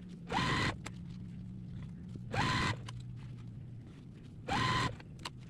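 Small electric motor, most likely the sewing machine's, whirring up in pitch in three short bursts about two seconds apart, each stopping after about half a second, over a low steady hum.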